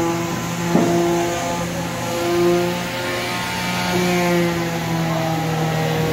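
Electric power sanders running on wood-filler-patched MDF, several motor tones at once whose pitch shifts as the sanders are pressed on and eased off, with one sharp knock about a second in.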